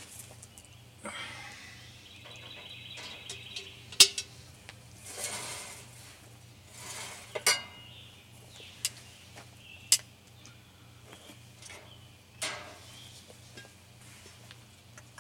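Metal serving tongs clinking and scraping against plates and a cast-iron Dutch oven as ribs are served out. There are several sharp clinks, the loudest about four seconds in and more around halfway through.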